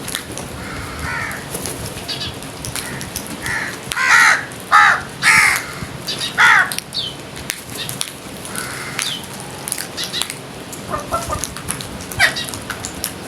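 Crows cawing: a quick run of about five loud, harsh caws a few seconds in, with fainter caws before and after.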